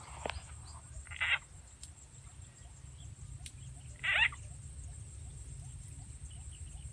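Frog calling: two short calls about three seconds apart, over a steady high drone and low rumble.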